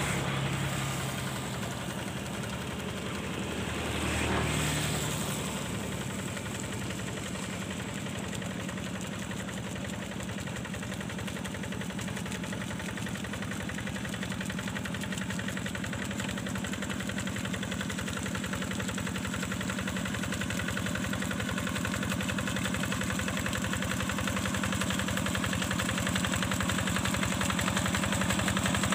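Single-cylinder diesel engine of a two-wheel hand tractor running steadily while it drags a leveling plank through a flooded rice paddy, growing louder as it comes closer. There are two brief louder swells in the first five seconds.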